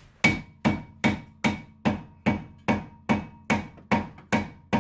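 A large hammer strikes a rust-seized brake rotor on a 2009 Toyota RAV4 hub, about two and a half blows a second in an even rhythm. Each blow leaves a short metallic ring.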